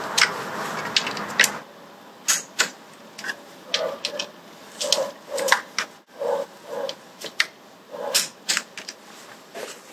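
Click-type torque wrench ratcheting on the engine guard's bolts in short bursts of sharp clicks, tightening them to about 12 N·m. A soft rustling hiss runs under the first second and a half.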